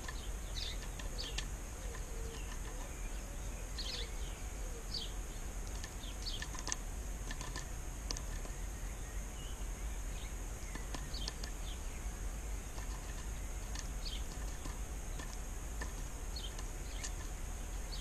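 Small garden birds chirping: short, high calls scattered throughout, over a steady high hiss.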